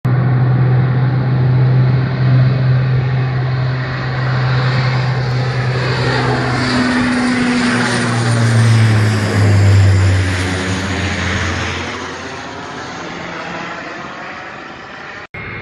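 Twin-engine turboprop airliner taking off and passing low overhead: a loud, steady propeller drone that drops in pitch as it goes over, around the middle, then fades as it climbs away.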